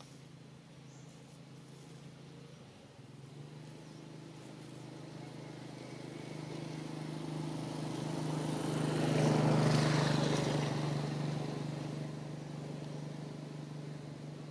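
A motor vehicle passing by: its engine builds gradually, is loudest about two-thirds of the way through, then fades.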